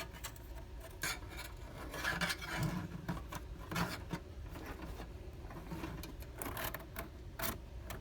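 Thin metal band of a wind-up (DIN N262) hose clamp being worked by hand around a hose and through the clamp, giving irregular scraping and rubbing strokes.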